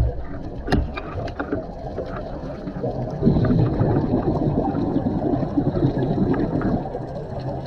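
Underwater, a scuba diver's exhaled bubbles gurgle out past the camera housing in a dense rumble lasting about three seconds, starting about three seconds in. Before that come a few sharp clicks.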